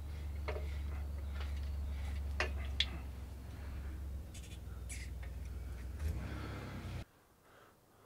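An engine crane and its chain squeaking and clicking as a heavy LS V8 is lowered slowly into a truck's engine bay, over a steady low hum. The hum cuts off suddenly about seven seconds in.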